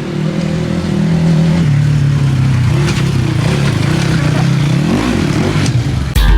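Motorcycle engine running at a steady pitch, which dips and then rises again about five seconds in as the throttle changes.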